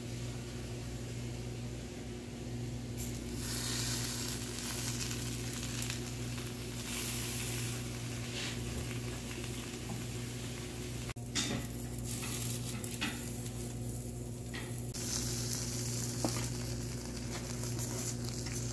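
Tortilla kebab wraps sizzling on a hot ridged grill pan. The sizzle starts about three seconds in as they go down, then rises and falls over a steady low hum.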